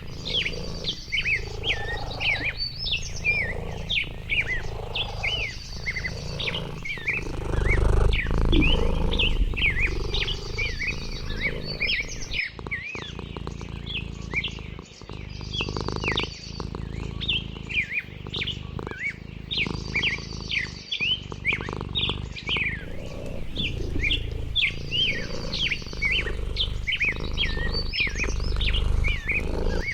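Songbirds chirping and singing, many short chirps overlapping, with a higher trill coming back every few seconds, over a low rumble.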